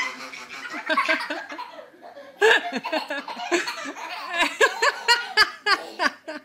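Baby laughing hysterically in short, high-pitched bursts of belly laughs, quieter for a moment about two seconds in, then coming thick and fast.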